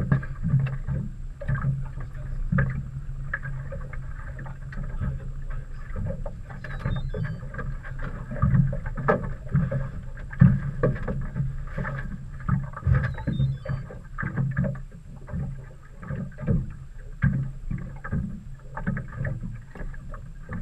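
A boat's motor running steadily with a low hum, under irregular knocks and thumps.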